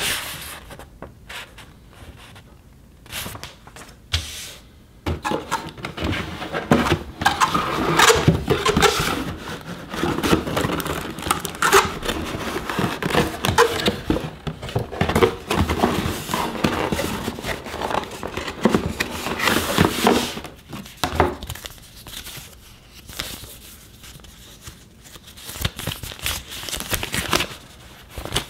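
Paper leaflets and a plastic packaging bag being handled: crinkling and rustling, thickest and loudest through the middle of the stretch, with sparser paper handling at the start and near the end.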